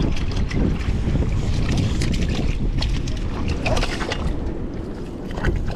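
Wind buffeting the microphone, a steady low rumble, with scattered small clicks and ticks over it.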